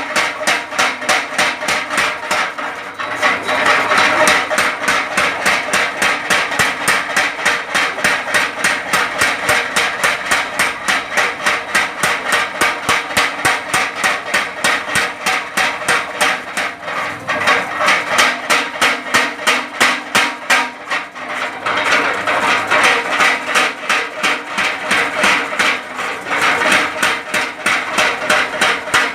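Blacksmith's hammers striking metal on an anvil in a fast, steady rhythm of about four to five blows a second, with a ringing metallic tone.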